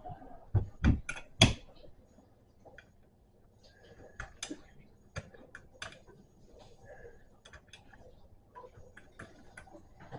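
Four sharp knocks in quick succession about a second in, then scattered light clicks and taps: small metal bicycle parts being handled and fitted during assembly of the handlebar stem.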